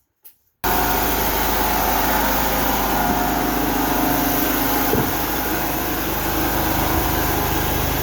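Mini skid steer engine running steadily under load while it moves a trailer, cutting in abruptly about half a second in.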